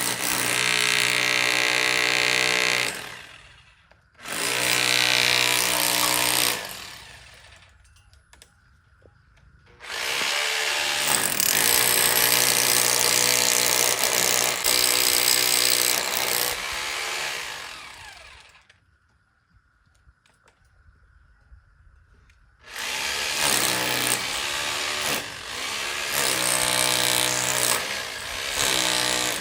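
Jackhammer chiselling into a house wall in four runs of a few seconds each, stopping between runs, from the start, from about 4 s, from about 10 s and from about 23 s.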